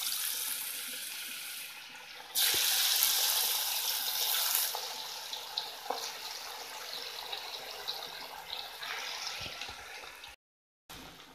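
Marinated chicken pieces deep-frying in hot oil in a kadai: a steady sizzle with scattered crackles. About two and a half seconds in, the sizzle jumps louder as another piece goes into the oil, then slowly settles.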